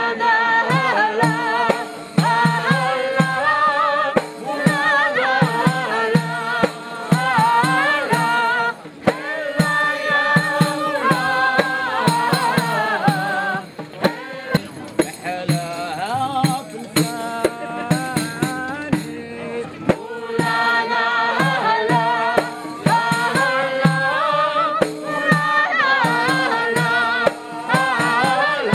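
A group of voices singing a traditional folk song together in chorus, phrase by phrase with short breaks. A steady percussion beat runs underneath.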